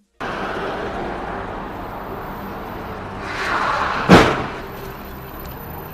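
Road traffic noise, then a car coming closer and a single loud crash of two cars colliding about four seconds in.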